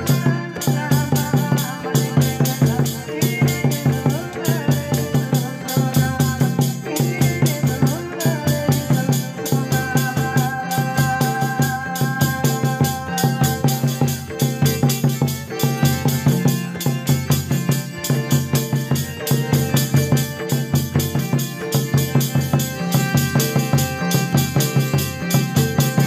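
Hymn singing over a fast, even drum beat.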